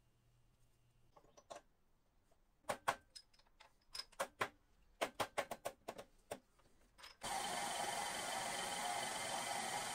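A series of irregular sharp knocks and clicks, like metal parts and tools being handled. About seven seconds in, a machine starts abruptly and runs with a steady, even noise.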